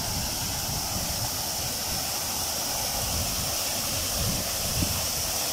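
Water gushing steadily from a dam outlet into a pool below: a constant, even rushing and splashing.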